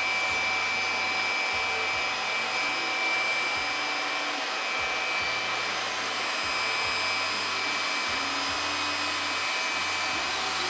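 A machine running steadily: an even rushing noise with a thin, constant high whine on top and a low hum beneath.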